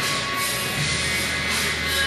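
Background music with a steady beat, played over the hall's loudspeakers.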